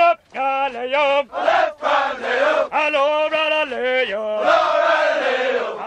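Male voices chanting a military-style marching cadence, sung phrases with brief breaks between them.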